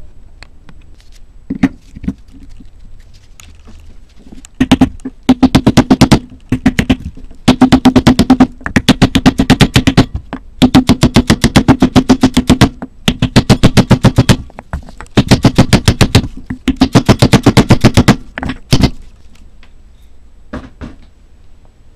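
A wooden block being tapped rapidly with a hammer to seat an engine's main bearing cap bridge: runs of quick taps about a second or two long with short pauses between them, after a few single knocks.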